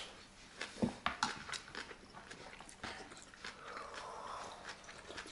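Eating sounds: instant-noodle broth slurped and gulped straight from a tipped plastic bowl, with scattered small clicks and a couple of soft knocks in the first second and a half.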